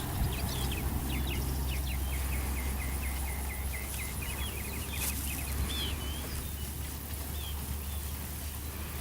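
Small birds chirping and trilling in quick runs of short notes, busiest in the first few seconds, over a steady low rumble.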